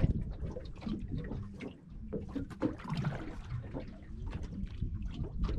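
Water lapping and slapping against a small aluminium boat's hull, with scattered irregular clicks and knocks.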